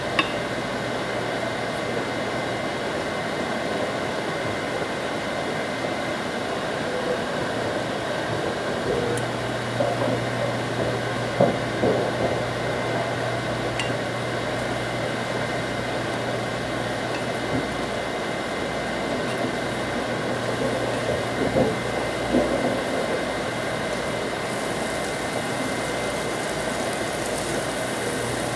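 A steady fan-like hum and hiss, with a sharp click at the very start and a few short knocks and scrapes of a wooden spoon stirring green beans in a metal saucepan, about ten seconds in and again about twenty seconds in.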